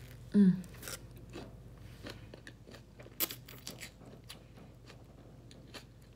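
Close-up chewing of a sub sandwich: a run of soft crunching and clicking mouth sounds, one sharper crunch about three seconds in. A brief vocal sound comes about half a second in.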